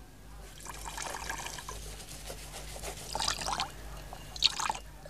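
Water trickling and dripping into an enamel basin, in uneven spells, the strongest a little past three seconds and about four and a half seconds in.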